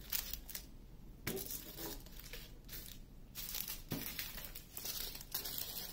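Small plastic bags of diamond painting drills crinkling as they are handled and set down on the table, in several short, scattered rustles.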